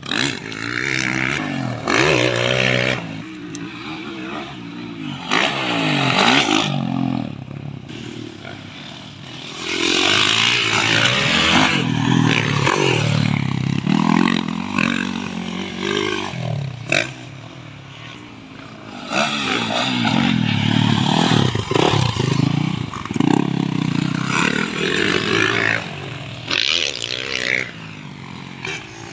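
Motocross dirt bike engines revving, their pitch climbing and dropping again and again as the riders open and close the throttle through the gears. The sound swells loud in several stretches and dies back between them.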